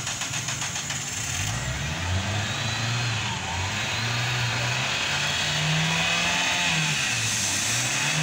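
Toyota Corolla GLi petrol engine running, its pitch rising and falling as the revs go up and down.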